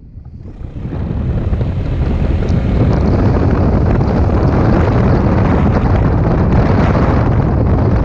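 Wind rushing over the microphone of a camera on a maxi scooter riding at about 45 km/h, with the scooter's running and road noise underneath. It rises over the first second.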